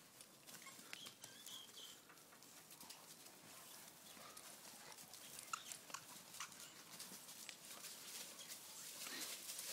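Faint scuffling and clicking of two dogs tugging at a toy between them, with a brief high squeak about a second and a half in; the clicks come thicker near the end.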